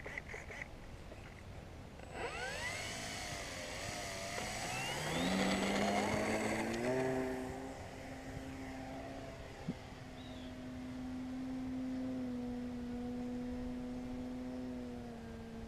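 Electric RC airplane's motor and propeller spooling up for take-off: a whine rising in pitch about two seconds in, loudest a few seconds later as the plane climbs away, then settling into a steady drone as it flies off.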